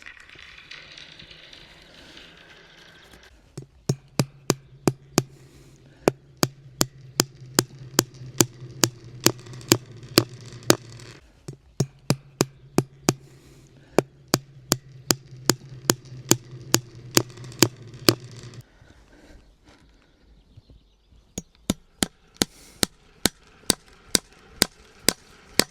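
Hammer driving fence staples into wooden fence posts: sharp, evenly spaced blows about two or three a second, in one long run and then, after a short pause, a second run.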